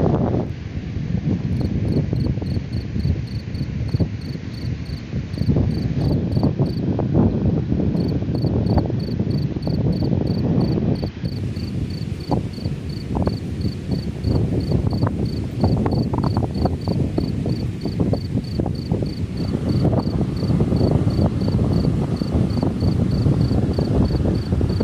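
Strong wind buffeting the microphone in low, gusty rumbles, with a cricket chirping steadily about three times a second over it, pausing briefly about seven seconds in.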